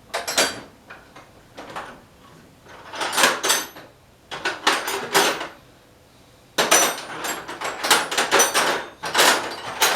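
Metal hand tools clinking and clattering in a drawer as they are rummaged through in search of a wrench. The noise comes in several bursts of clanks with short pauses between them.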